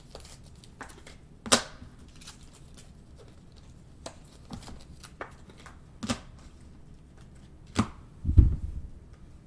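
Trading cards and foil packs being handled on a table: a few sharp clicks and taps spaced seconds apart, then a louder low thump near the end.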